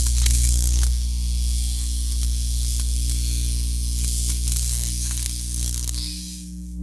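Lightsaber sound effect: a steady low electric hum with crackling, hissing static over it. The hiss fades near the end and the hum then cuts off abruptly.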